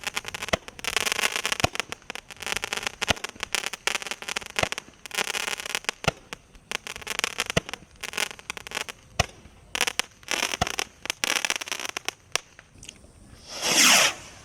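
Garden fireworks going off in a rapid series: sharp shots, each followed by a short hissing crackle, about one to two a second, with a louder sweeping whoosh near the end.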